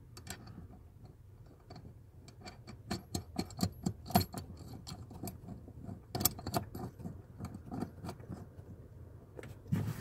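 Light, irregular metallic clicks and taps as a 15 mm bolt and its washer are handled and threaded by hand onto a clutch pedal's pivot, bunched in two flurries about three and six seconds in.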